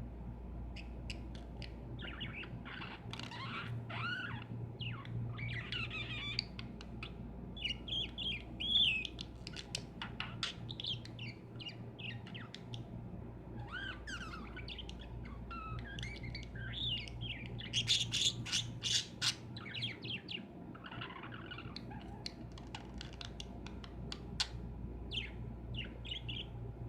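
Several lovebirds in a cage chirping and squawking, with short, pitch-bending high calls coming in quick irregular runs throughout. A steady low hum runs underneath.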